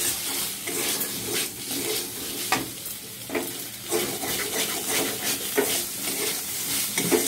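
Spiced minced chicken sizzling in a frying pan, with a spatula scraping and knocking against the pan every second or so as it is stirred and scooped out.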